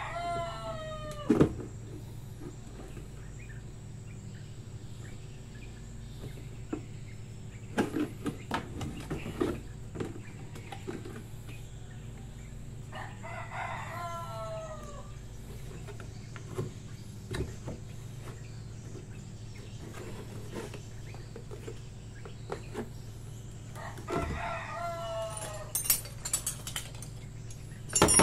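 A rooster crowing three times, about eleven seconds apart, each crow a long call that falls in pitch at the end. Between the crows come scattered short knocks and scrapes of a knife cutting and handling a plastic water jug.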